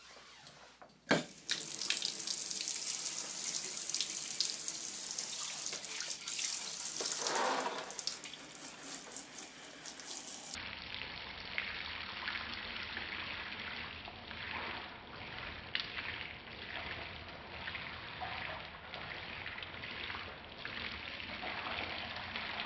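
Water running and splashing onto a Flex Seal–coated window sill, testing that the rubbery coating sheds water instead of soaking it in. A click about a second in, then a steady rush of water; about halfway through it turns duller after a cut, with small spattering crackles.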